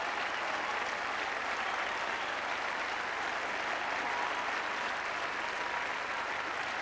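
Large tennis stadium crowd applauding steadily.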